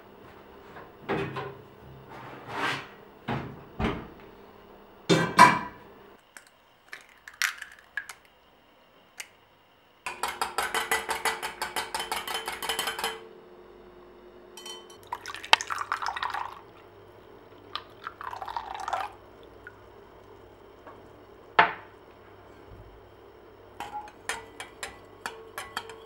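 Kitchen prep in a glass mixing bowl: scattered knocks and clinks of the bowl and utensils, then a few seconds of rapid, even beating strokes of a wire whisk against the glass. Liquid is poured into the bowl, followed by more small clinks near the end.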